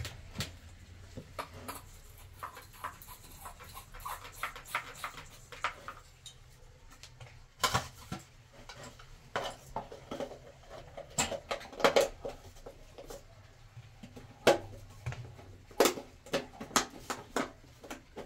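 Irregular plastic and metal clicks and knocks as a round plastic light fixture is handled and screwed onto a tiled bathroom wall, with one sharper knock about fourteen seconds in.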